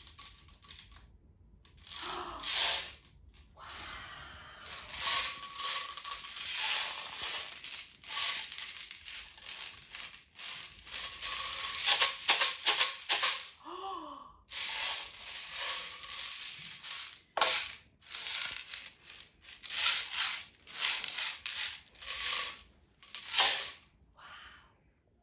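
A clear sensory shaker tube filled with small coloured beads, shaken by hand: the beads rattle in repeated bursts with short pauses between shakes, loudest around the middle.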